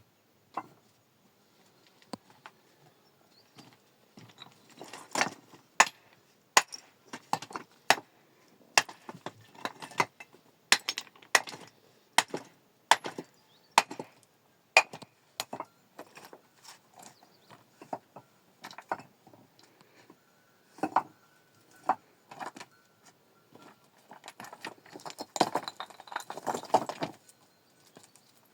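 Rocks clacking and knocking against each other as they are handled and stacked: irregular sharp knocks, a second or so apart, with a busier patch of clattering near the end.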